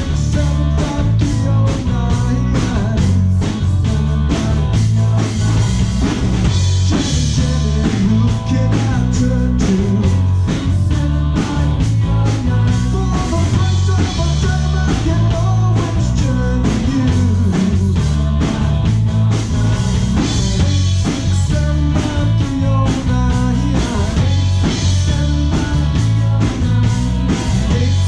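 Live rock band playing a power-pop song: a steady drum-kit beat, electric bass, guitar and keyboards, with a woman singing lead in places.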